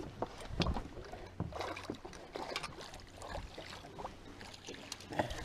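A chain pickerel splashing as it is scooped up in a landing net at the surface, with irregular knocks and bumps against the boat.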